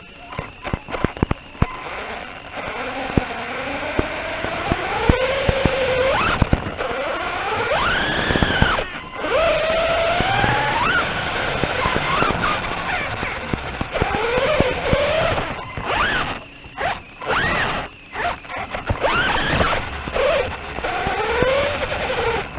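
Small electric motor of a 1/16-scale RC car whining, its pitch rising and falling with the throttle, with scattered clicks and knocks; the sound drops out briefly several times in the second half.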